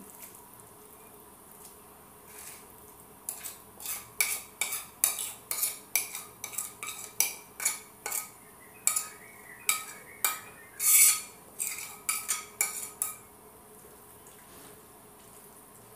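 Metal cooking utensil scraping and knocking against cookware in quick strokes, about two a second, as ground chili paste is spooned into a pan of oil. The strokes start a few seconds in and stop near the end, with one longer, louder scrape toward the end.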